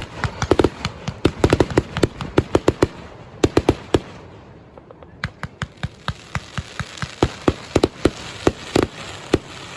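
Fireworks going off: rapid strings of sharp bangs and pops, thick for the first few seconds, a brief lull about midway, then single bangs coming every half second or so.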